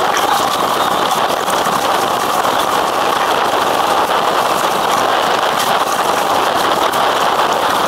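Steady rush of water and spray along the hull of an Impala 28 sailing yacht heeled over and moving fast under sail, with small splashes breaking through.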